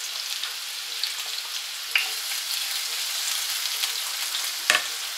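Diced onions sizzling in olive oil in a frying pan as they are sweated off, stirred with a spatula. Two sharp clicks stand out, about two seconds in and again near the end.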